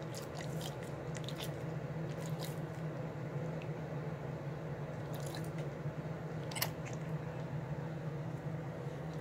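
A dog's mouth noises up close: scattered wet smacks and clicks as it licks its lips and chews, over a steady low hum.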